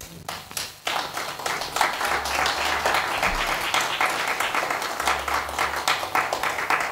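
Audience applauding, faint at first and then in full about a second in.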